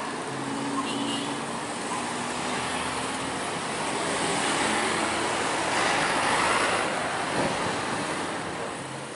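Road traffic: cars, trucks and motorcycles passing close by in a steady rush of engines and tyres. It swells about six seconds in as a vehicle goes past.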